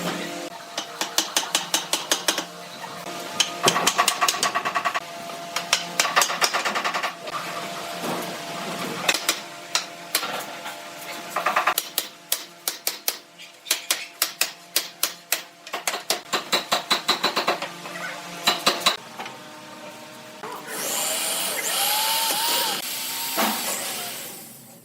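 Woodworking tool work: repeated fast series of sharp knocks, like hammering or tapping on wood, in bursts of several strikes a second. Near the end the knocking gives way to a couple of seconds of steady noisy whirring.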